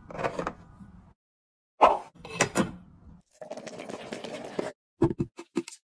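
Edited kitchen sounds from a small electric cooker pot. First come knocks and clinks as a plastic steamer basket is set into the pot, then a stretch of steady bubbling under the glass lid, and a few short sharp knocks near the end.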